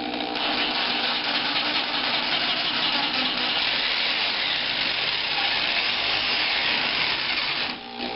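Electric jigsaw running steadily as it cuts into a pumpkin, stopping for a moment near the end and starting again.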